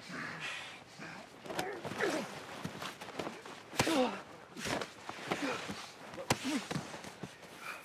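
Two men grunting, gasping and breathing hard as they wrestle on snowy ground, with bodies scuffling and two sharp knocks about four and six seconds in.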